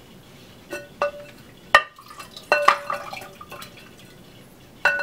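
Glazed ceramic fountain lid clinking and knocking against the ceramic bowl as it is lifted off: about six sharp knocks, each ringing briefly at the same pitch, the loudest a little under two seconds in.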